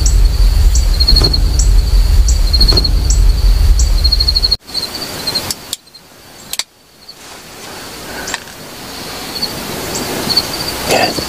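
Forest ambience: a steady, high, repeating chirping of insects or birds, with a heavy low rumble for the first four and a half seconds. After an abrupt drop it goes quieter, with two sharp clicks, and then the chirping and background noise slowly build again.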